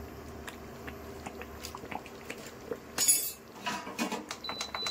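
Steel spoon knocking and scraping in a stainless steel pan of gravy: small clicks throughout, a sharp metallic clatter about three seconds in, more clatter just after, then a brief ringing tone near the end.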